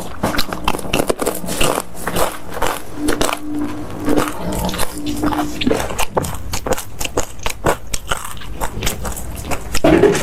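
Close-miked eating: a person biting and chewing, with a quick run of short wet clicks and smacks.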